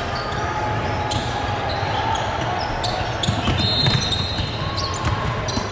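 Basketball game in a gym: a ball bouncing on the hardwood court, over a steady hubbub of crowd and player voices. Sneakers squeak on the floor several times, with one longer squeal a little past halfway.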